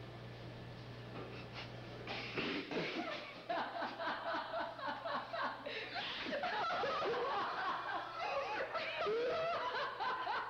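A low steady hum for the first two and a half seconds, then several people laughing, men and women together, in short, broken bursts.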